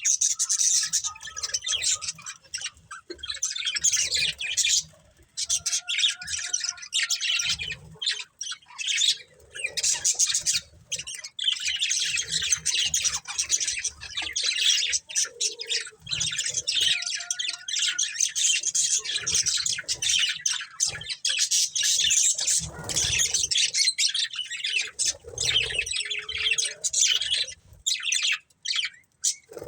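Budgerigars (budgies) chirping in rapid, dense runs, with a few brief pauses.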